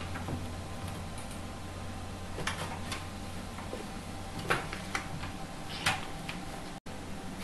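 Scattered light clicks and taps, a handful over several seconds, over a steady low hum.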